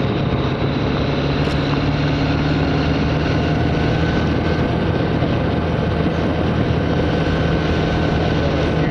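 Small engine of a motorised bicycle running at a steady speed while riding, with wind rushing over a helmet-mounted lav mic.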